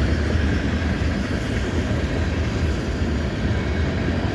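Freight train's cars rolling past close by: a steady rumble of steel wheels on the rails.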